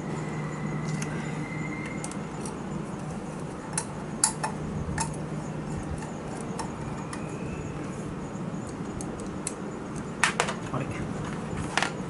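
Light metallic clicks and clinks of hand tools and small metal parts during work on a motorcycle's carburetor, the sharpest about four seconds in and again twice close together around ten seconds in, over a steady low hum.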